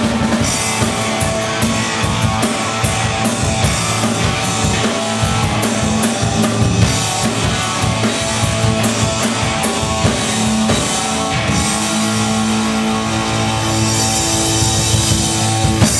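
Live rock band playing: electric guitars, bass guitar and drum kit. The band stops playing at the very end.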